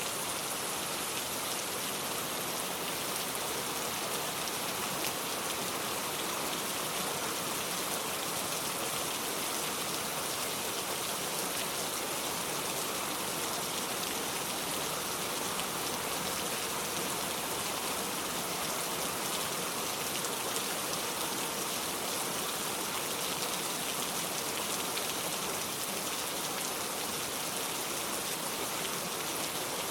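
Heavy rain falling steadily, a dense even hiss of raindrops striking surfaces.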